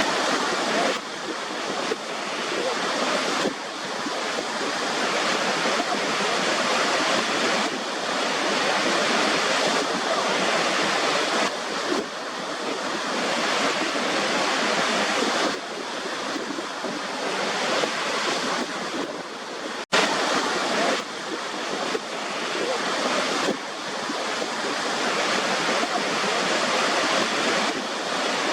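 Steady rushing white noise, even across the highs with little bass and shifting slightly in level every few seconds. It cuts out for an instant about twenty seconds in, then resumes.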